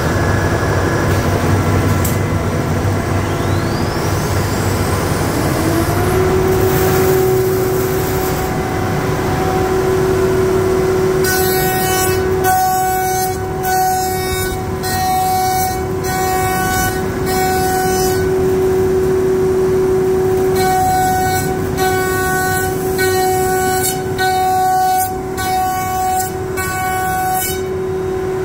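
CNC router spindle spinning up with a rising whine about five seconds in, then running at a steady pitch. From about halfway there are two runs of short repeated cutting noises, roughly one a second, as the bits machine tenons on wooden window rails.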